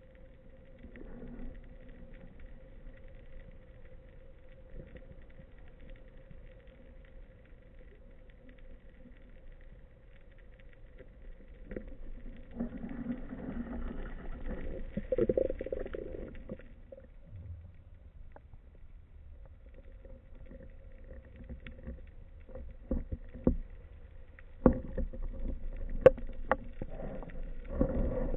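Muffled underwater sound picked up by an action camera in its waterproof housing: a low steady hum with a faint whine, a louder rushing stretch about halfway through, and a run of sharp clicks and knocks near the end.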